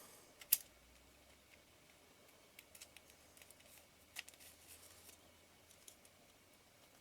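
Faint handling sounds of small lens parts worked by hand: a sharp click about half a second in, another about four seconds in, and scattered light ticks between.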